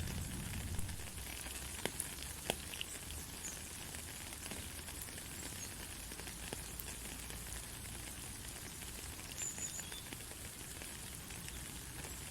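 Steady rain falling, an even hiss of drops with a few louder individual drop hits about two seconds in.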